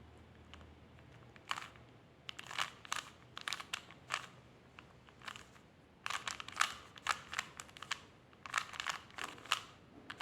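Rubik's Cube faces being turned by hand: quick runs of sharp plastic clicks and scrapes, with a short lull about halfway through.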